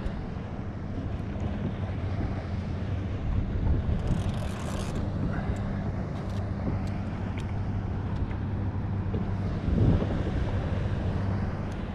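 Wind rumbling on the microphone over open water, with a steady low motor hum underneath and a louder gust near the end.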